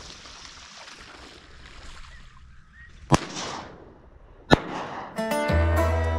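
Two shotgun shots about a second and a half apart, each a sharp crack with a short echoing tail, over faint background hiss; banjo-style plucked-string music starts near the end.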